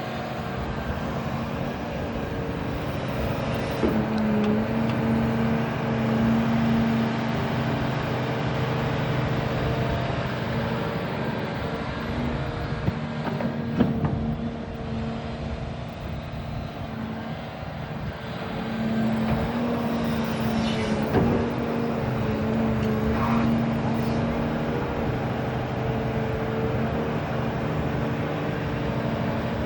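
Volvo EC550E hydraulic excavator's diesel engine running under load while it digs and loads a dump truck, its pitch shifting as the hydraulics work, with a few sharp knocks from the bucket and dirt.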